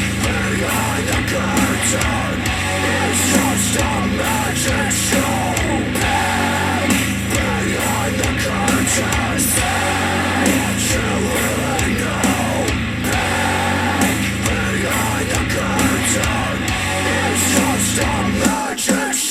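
Loud heavy rock music with a steady beat, played through a JBL Charge 4 Bluetooth speaker. The bass drops out briefly near the end.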